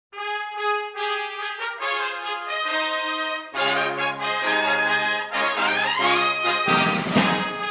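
Background music played on brass instruments such as trumpet and trombone: a run of short notes, with a rising slide a little after the middle.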